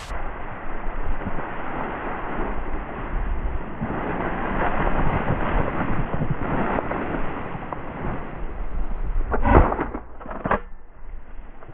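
Wind noise on the microphone, then two shotgun shots about a second apart near the end, the first the louder.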